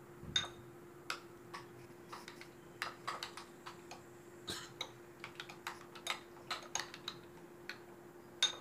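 A metal spoon stirring a beaten egg mixture in a small bowl, knocking against the bowl in quick, irregular clicks several times a second. A faint steady hum runs underneath.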